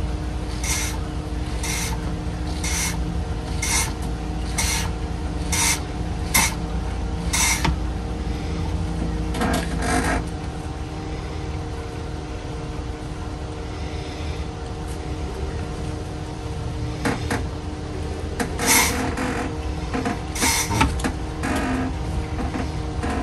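Hand-pumped vacuum oil extractor working, drawing engine oil up through a hose in the dipstick tube. It gives short noisy strokes about once a second for the first several seconds, then a few scattered ones, over a steady background hum.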